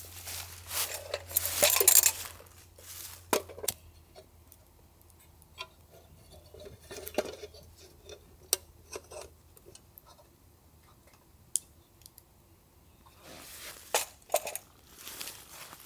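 Metal camping gear being handled: scattered light metallic clicks and taps, with a burst of rustling in the first couple of seconds and more rustling near the end.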